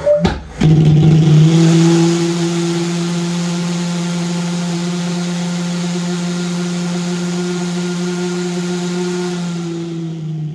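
Propane-fuelled pulse jet engine lighting off: a couple of sharp pops as the flame enters the combustion chamber, then it catches and runs with a loud, steady buzzing drone on one pitch, the sign that it has gone into self-sustaining oscillation.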